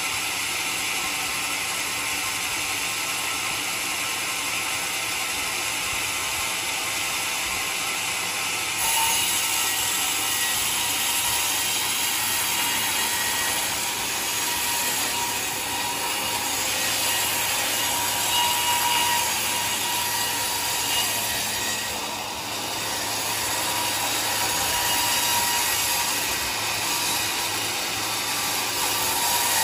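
Band sawmill cutting lengthwise through a large mahogany log: a continuous saw noise that grows louder about nine seconds in as the blade works into the wood.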